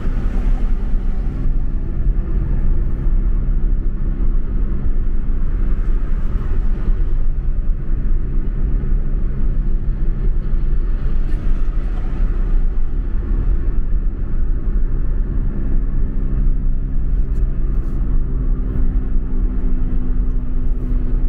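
Steady drone of a car's engine and tyre rumble heard from inside the cabin while cruising on a highway, the engine note holding level without revving up or down.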